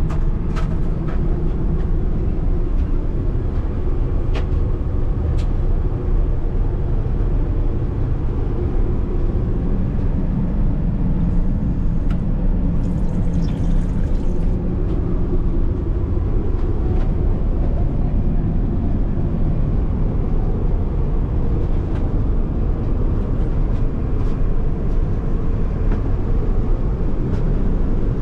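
Steady low rumble of a Boeing 777-300ER cruising, heard inside the cabin's lavatory. A few sharp clicks come in the first few seconds, and the washbasin tap runs briefly near the middle with a short hiss.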